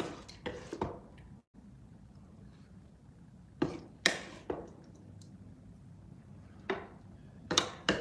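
A few light knocks and clinks in small clusters, like tableware being handled against a plate: three near the start, three about halfway, one more and then two close together near the end.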